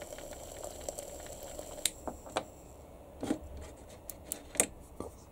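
Scattered light clicks, taps and rubs of hands handling a small device on a workbench, with a faint steady hum and a thin high whine that stop about three seconds in.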